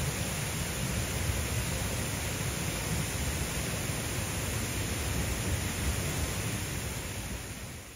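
A steady rushing noise with a fluctuating low rumble underneath, fading out at the very end.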